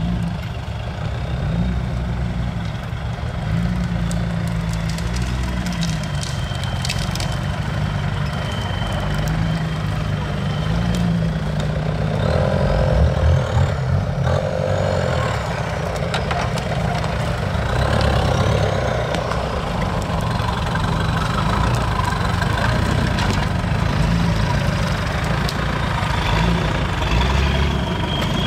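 Off-road vehicle's engine running and revving up and down repeatedly, its pitch rising and falling over and over.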